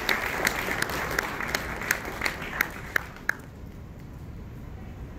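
Audience applause with a few sharp, loud claps close by, dying away a little over three seconds in and leaving quiet room noise.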